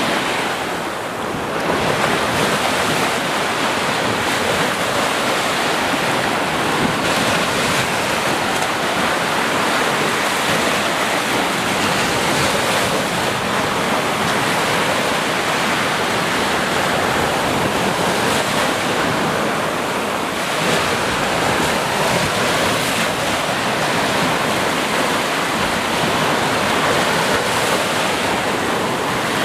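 Waves breaking and washing up a sandy beach: a continuous rush of surf that dips briefly about a second in.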